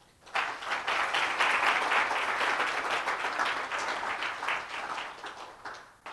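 Audience applauding after a talk: many hands clapping, swelling within the first second, then gradually dying away to a few scattered claps near the end.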